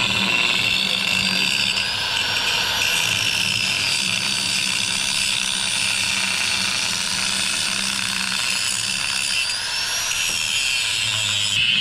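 Electric angle grinder grinding the steel teeth of an excavator bucket, a steady high whine with its pitch wavering as the disc bears on the metal.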